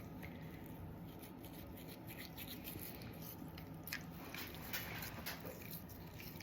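A toothbrush scrubbing a small dog's teeth: faint, irregular short strokes and clicks.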